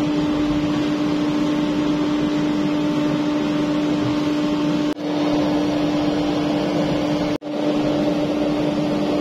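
Blower of an oil-fired burner heating a powder-coating curing oven, running with a steady hum over a rush of forced air and flame. The sound drops out abruptly twice for a moment, about five and seven seconds in.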